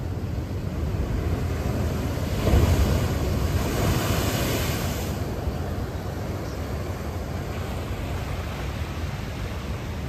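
Ocean surf with a steady low rumble; a wave breaks about two and a half seconds in, rises to a hissing wash, and eases off over the next few seconds.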